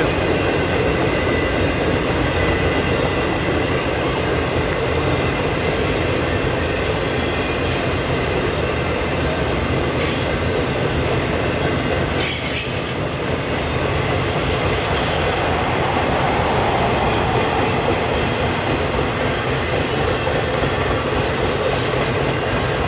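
Flatcars of a long train rolling past at speed: a steady heavy rumble of steel wheels on rail with clicking over the rail joints and brief high-pitched wheel squeals now and then.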